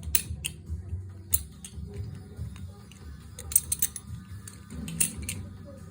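Balisong handles being flipped: irregular sharp metallic clicks and clacks as the handles swing and strike each other, over a low steady hum.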